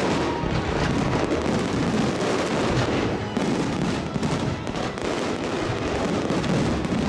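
A fireworks display going off, many quick crackles and pops, mixed with loud music.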